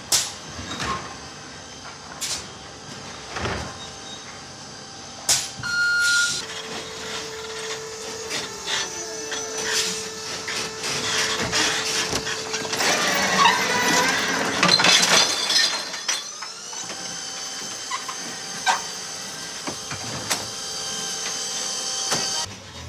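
Electric Heil sideloader garbage truck's automated arm gripping, lifting and emptying a recycling cart: clanks and knocks from the arm, a steady whine from the truck's electric drive, and a loud clatter of recyclables tumbling out of the cart about halfway through. Near the end a high steady whine cuts off suddenly as the arm comes to rest.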